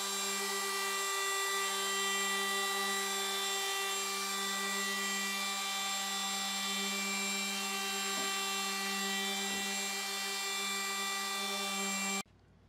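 Router with a flush-trim bit running at a steady high-pitched whine as it trims the plywood top flush with the sides. It cuts off suddenly near the end.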